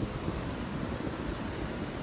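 Steady rush of rough surf, with wind buffeting the microphone.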